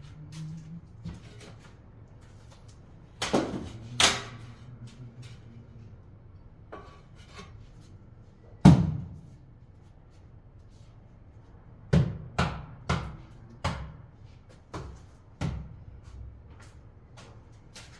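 Irregular sharp knocks of hard objects striking, as from tools and materials being handled during tiling work. The loudest knock comes about halfway through, and a quick run of five or six knocks follows near the end.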